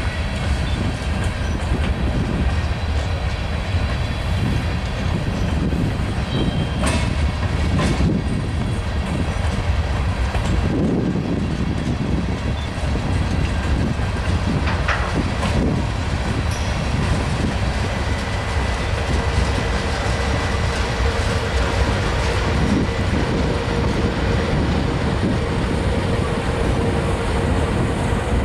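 Freight train cars rolling past on the rails: a steady rumble with the clickety-clack of wheels over rail joints and a few sharp knocks. A BNSF diesel locomotive pushing at the tail of the train goes by about halfway through, and the noise carries on as the train moves away.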